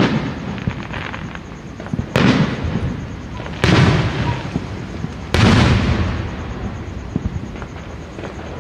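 Fireworks show with four loud booms about one and a half to two seconds apart, each trailing off in a rolling echo. Lighter scattered pops follow near the end.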